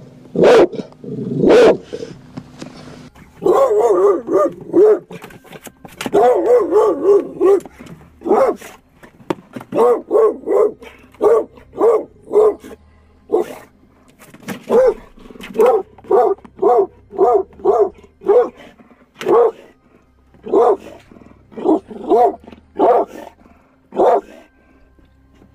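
American Bulldog barking frantically inside a car, in runs of sharp barks about two a second, with two longer unbroken stretches of wavering cries about four and six seconds in. It is an aggressive outburst of the dog's reactivity in the car.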